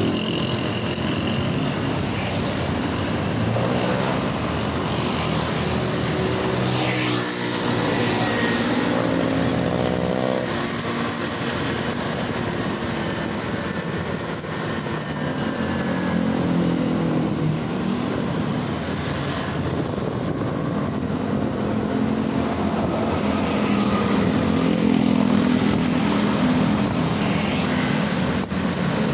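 Busy highway traffic heard from a moving rider: motorcycle and other vehicle engines running over a steady rush of road noise. An engine's pitch rises as it speeds up about seven seconds in.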